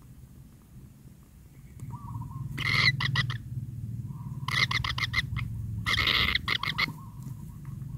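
Kingfisher nestlings in their burrow giving harsh, rasping calls in three bursts of rapid notes, from about two and a half seconds in to near the end, with a few faint short whistles between and a low steady hum underneath.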